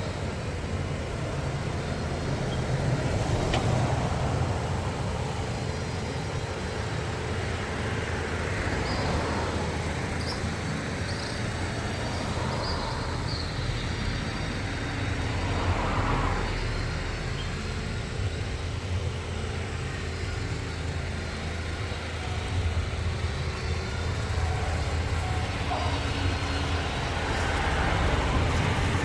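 Steady low rumble of a moving car's road and engine noise, with faint scattered sounds over it.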